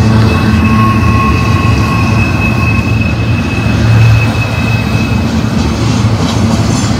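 Double-stack intermodal freight train's well cars rolling past: a loud, steady rumble of steel wheels on rail. A high-pitched wheel squeal rides over it and fades out about five seconds in.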